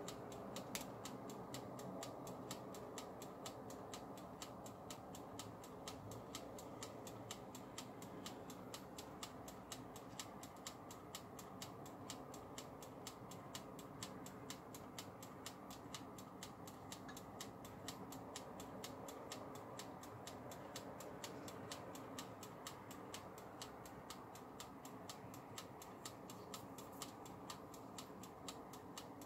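Mechanical timer dial on an electric bungeoppang (fish-shaped waffle) maker ticking steadily and quietly, about four ticks a second, while the maker heats.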